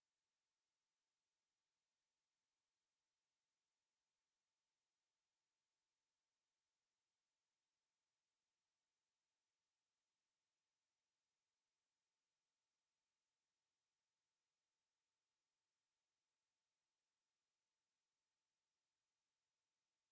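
A 9861 Hz pure sine-wave speaker test tone: one steady, high-pitched tone held without change.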